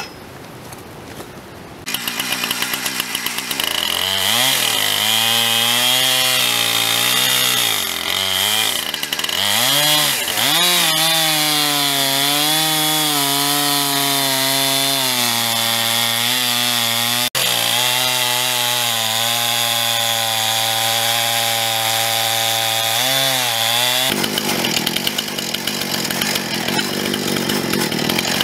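Husqvarna gas chainsaw on an Alaskan-style chainsaw mill, ripping a Paulownia log lengthwise into a board. After a quieter start the saw opens up about two seconds in, its pitch swinging up and down for several seconds as it goes into the cut, then holds a steady pitch under load for most of the rip. Near the end the pitch climbs and the steady engine note gives way to a rougher, noisier sound.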